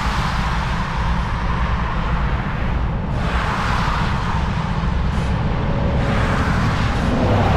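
Cars passing one after another on the highway below, each swelling into a rushing tyre-and-engine noise, three times. Under them runs a steady low rumble.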